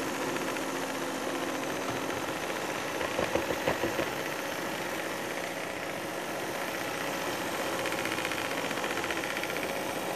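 Moulinex Easy electric stand mixer running steadily, its motor whirring as the beaters turn in the bowl. A short run of louder knocks comes about three to four seconds in.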